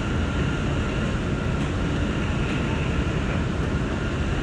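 A New York City subway J train running on elevated track, heard from inside its front car: a steady rumble of wheels on rails, with a faint steady whine above it.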